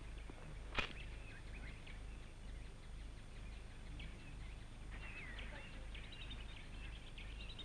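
Small birds chirping and twittering in the bush over a steady low hum, with a single sharp click about a second in.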